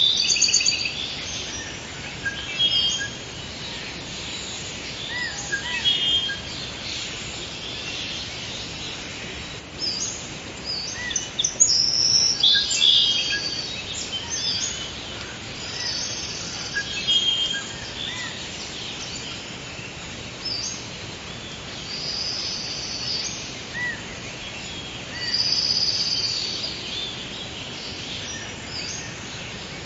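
Forest birds singing and calling: high chirps and quick trills that come and go in phrases every few seconds, over a steady background hiss.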